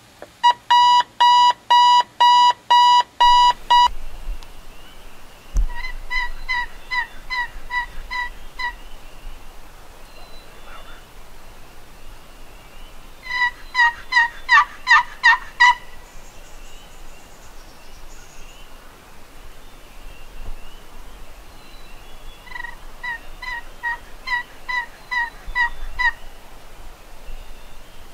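A digital alarm clock beeps in fast, even pulses for the first four seconds. After that come three runs of hen-turkey yelps, each a string of about ten short notes at three to four a second. The middle run is the loudest.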